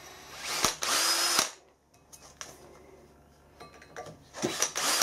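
Hand-held 18 V cordless drill starting a bit into a cast iron flywheel hub in short trigger bursts: one burst of about a second near the start, a pause, then a few quick blips near the end. This is the hole being spotted and lined up with the keyway before drilling straight through.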